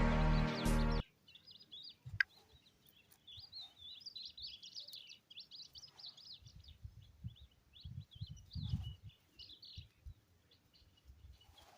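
Background music cuts off about a second in. Then small birds chirp rapidly in a busy run of high twitters that thins to scattered calls, with a few low thuds and rustles partway through.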